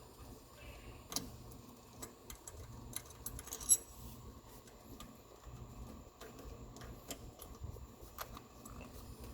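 Scattered sharp metallic clicks and light clinks of hand tools and small metal parts being handled during engine work, the loudest about halfway through, over a low steady hum.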